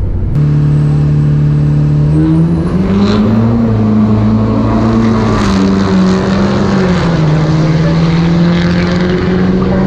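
Car engine running at steady revs with a strong drone. Its pitch climbs a little about two to three seconds in, drops back around seven seconds, then holds even.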